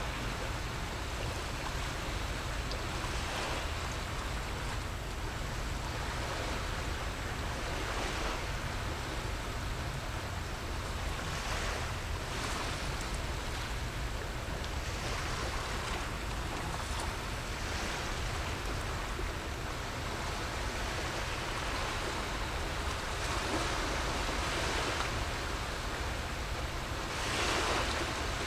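Small waves washing in at the water's edge, a soft hiss swelling every second or two over a steady low rumble, with a louder wash near the end.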